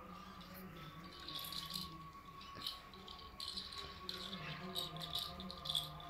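African grey parrot working at a hollow plastic ball toy with its beak, rattling it in short irregular bursts, over a steady hum.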